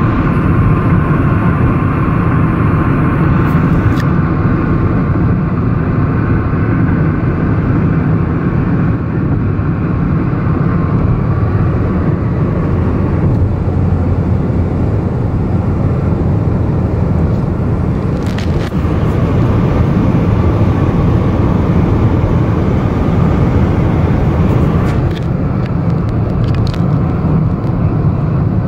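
Steady road and engine noise heard from inside a car cruising at highway speed, with a few faint clicks in the second half.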